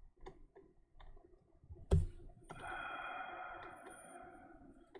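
Computer keyboard keys clicking softly a few times, then one sharper key strike about two seconds in. A faint hiss follows for about two seconds.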